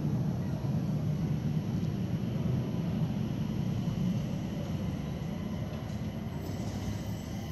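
Cabin running noise of a Mitsubishi Crystal Mover automated people mover travelling along its guideway: a steady low rumble from its rubber tyres and drive, getting a little quieter near the end.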